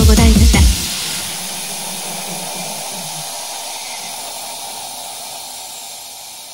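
An electronic dance remix with a heavy beat stops abruptly less than a second in. A steady hissing noise is left, and it fades slowly away.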